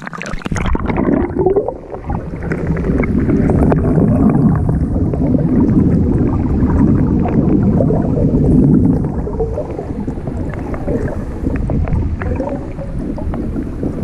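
Flowing spring-run water heard through a camera microphone held underwater: a muffled, dense low rushing and gurgling with the high end cut off. It starts suddenly as the camera plunges in.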